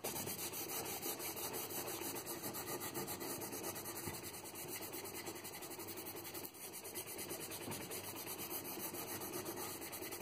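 A rag wet with methylated spirits rubbed back and forth over the wooden body of an Elvicta 530 spirit level, a continuous scrubbing in quick strokes that lifts greasy, sticky grime off the timber.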